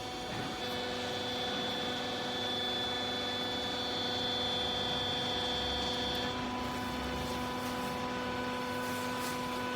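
Hydraulic clothing baler's pump unit running with a steady mechanical hum.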